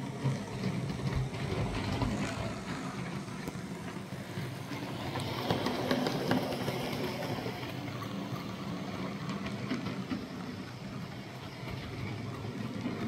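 Roco HO-scale model electric locomotives, an E.646 and an E.645, running along the track after being throttled up: a steady whir of their small electric motors and gears, with wheels rolling on the rails and occasional light clicks.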